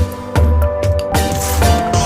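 Background music with a heavy bass beat and sustained melodic tones.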